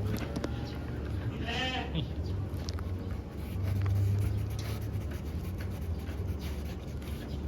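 A goat bleats once, a short wavering call about a second and a half in, over a steady low rumble that swells briefly about four seconds in.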